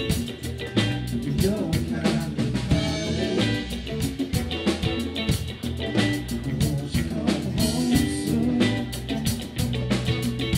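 Live rock band playing: electric guitar and drum kit with a steady beat, and a male singer's voice.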